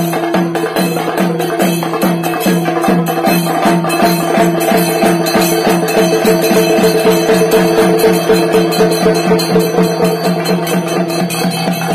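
Kerala chenda drums beaten with curved sticks in a fast, even thidambu nritham rhythm, with ringing drumheads. The strokes come closer together after a few seconds.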